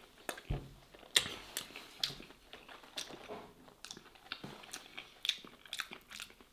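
A person chewing a mouthful of stuffed vegetables and minced meat close to the microphone: irregular mouth clicks and smacks, several a second.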